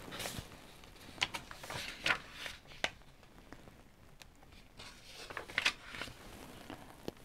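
Pages of a hardcover picture book being turned by hand: several soft paper swishes and crisp flicks, the loudest about two seconds in.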